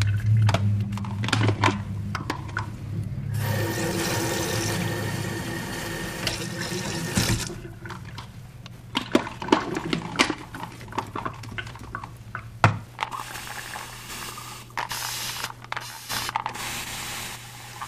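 Tap water running from a sink faucet into a plastic spray bottle for about four seconds, then stopping. After it come scattered clicks and knocks as the plastic bottles are handled, the sharpest a little past two thirds of the way through.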